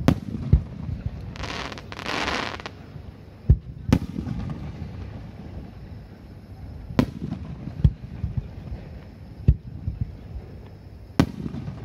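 Aerial firework shells bursting, about eight sharp bangs at uneven intervals with a low rolling rumble between them. A hiss lasting about a second comes near two seconds in.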